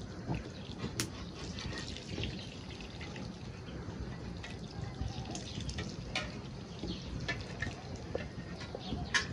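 Cooking oil dribbling and dripping through a metal slotted skimmer onto rice in a large pot, with a few light clicks scattered through.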